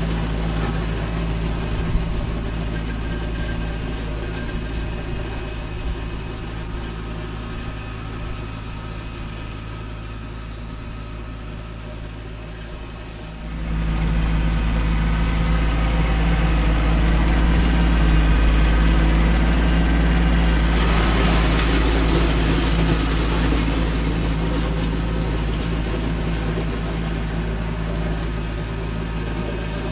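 Kubota B2601 compact tractor's three-cylinder diesel engine running steadily while working a rear blade through icy snow. It gets louder about halfway through, and a rougher hiss joins about two-thirds of the way in.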